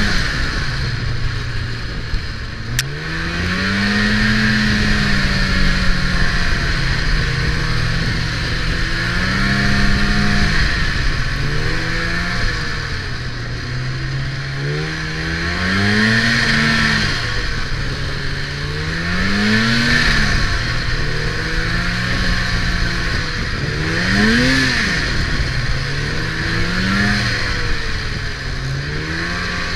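Snowmobile engine running along a trail, its pitch rising and falling every few seconds as the throttle is opened and eased off, over a steady hiss.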